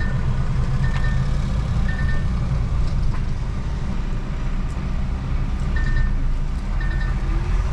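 Lorry cab interior: the truck's diesel engine rumbling steadily as it moves slowly. Short high electronic beeps sound about once a second, three at the start and two more near the end.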